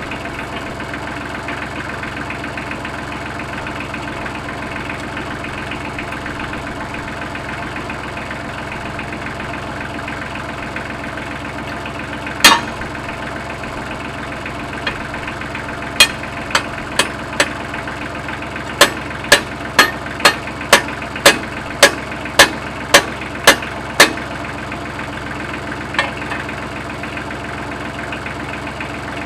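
Tractor engine idling steadily. Sharp knocks ring out over it: one about halfway through, then four, then about a dozen in an even run at roughly two a second, with a last faint one near the end.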